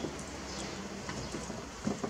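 Quiet handling of a raw rack of pork ribs on a wooden cutting board, with a soft thud near the end as the rack is set down on the board.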